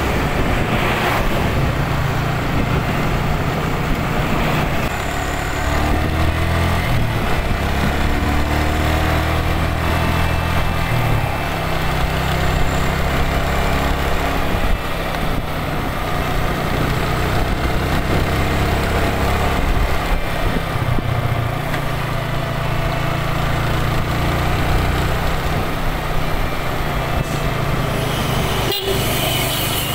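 Motorcycle engine running as the bike rides along, heard from on board with wind noise, its pitch shifting a few times with speed, and traffic including trucks going past.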